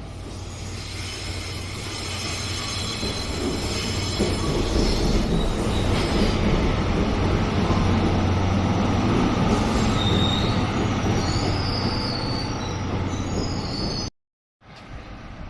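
A train passing close by on the rails, its wheels squealing; the noise builds over the first few seconds, is loudest in the middle, fades, and breaks off suddenly near the end.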